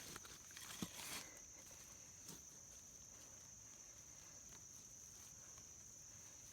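Insects trilling steadily at one high pitch, faint. In the first second or so a few soft rustles and a sharp knock, and one more small knock a little past two seconds in.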